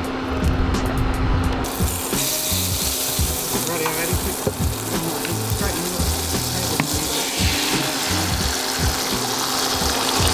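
Butter sizzling in a stainless steel frying pan on an induction cooker, starting about two seconds in, a steady hiss that carries on as beaten egg is poured into the pan.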